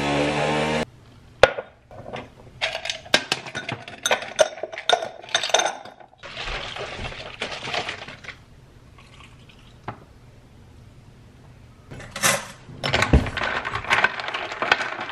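Background music cuts off under a second in. Then ice cubes and glass clink repeatedly as an iced coffee is put together, a liquid is poured from a bottle into the glass for about two seconds, and near the end a spoon stirs, clinking against the glass and ice.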